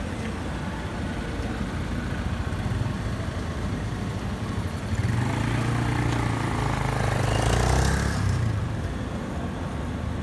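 Steady distant roar of an Airbus A320-214's CFM56 jet engines passing overhead, swelling louder from about halfway through and easing off near the end.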